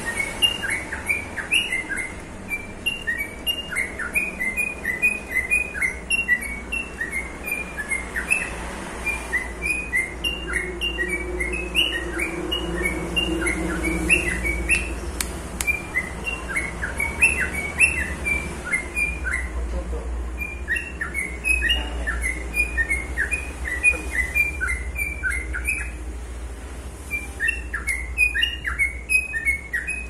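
Caged lovebird of the pale 'falk' colour mutation singing: a long, fast run of short high chirps, several a second, with a brief pause near the end.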